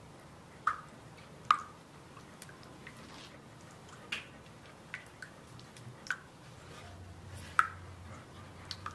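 Silicone spatula stirring a thin liquid in a wooden bowl: soft swishing with irregular sharp clicks and knocks as the spatula hits the bowl, about eight of them, two standing out as loudest.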